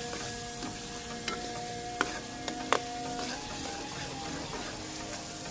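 Chopped onions sizzling as they fry in ghee in a metal karahi, being browned towards golden. A metal ladle stirs them, knocking sharply against the pan a few times around the middle.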